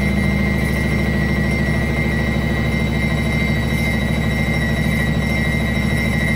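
Indesit WSB5085 washing machine spinning its drum: a steady, even motor hum with a constant high whine over it.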